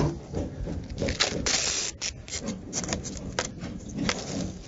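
Red adhesive tape being pulled off its roll with a ripping sound about a second and a half in, among shorter scrapes and rustles as it is pressed down over the top of an expanded polystyrene foam form block.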